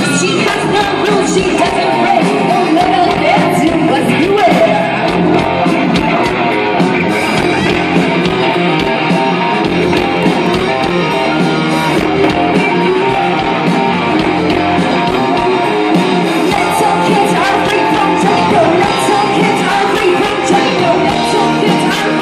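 A live rock band playing: a woman singing into a microphone over electric guitars, loud and continuous.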